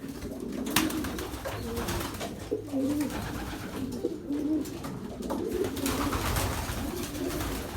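Several pigeons cooing over one another in a loft, with a sharp click about a second in.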